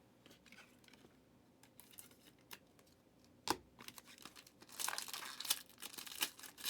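Trading cards and their plastic sleeves or wrapper being handled. Faint clicks at first, a sharp tap about halfway through, then a couple of seconds of crinkling and tearing rustle near the end.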